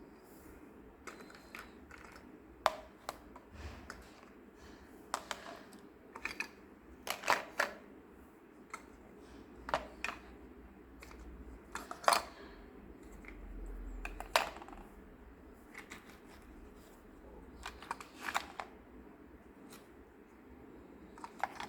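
Small plastic toy pieces being handled, giving irregular light clicks and taps, a few of them sharper and louder, over a faint background.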